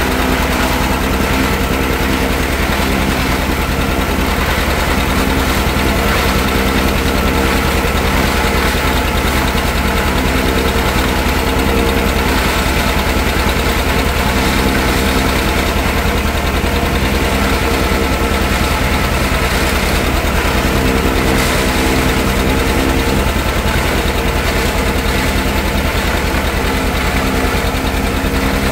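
John Deere two-cylinder tractor engine running steadily under load, pulling a one-row forage chopper that is cutting corn and blowing it into the wagon, the chopper running along with it.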